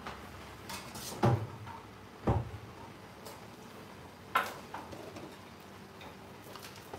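Kitchen clatter while cooking: a few separate knocks and clinks of dishes and utensils on the counter, roughly a second apart, the second one a dull thud. Fainter taps fall between them over a low room hum.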